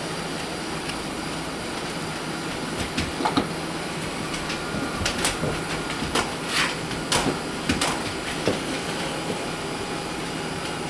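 Roomba robot vacuum running with a steady hum and brush noise, with a series of sharp knocks and bumps from about three seconds in to about eight and a half seconds.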